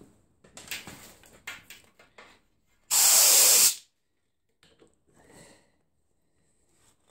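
A single short blast of compressed air from an air nozzle, a loud hiss under a second long, blown under a rubber handlebar grip so it slides onto the motorcycle's throttle tube. Quieter rustling and handling of the grip come before it, and a few small clicks after.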